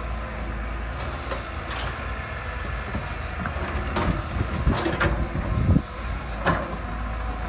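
Heavy machinery rumbling steadily, with a run of sharp metallic clanks and squeals about four to six and a half seconds in.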